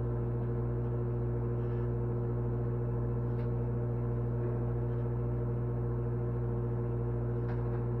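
Microwave oven running: a steady electrical hum with no change in pitch or level, and a few faint ticks.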